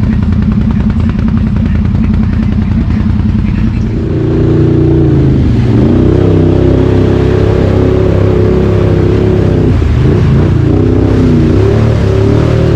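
Can-Am Outlander XMR 850 ATV's V-twin engine running through an aftermarket slip-on exhaust while riding. About four seconds in it gets louder and higher in pitch, holding high revs with a few brief dips and recoveries.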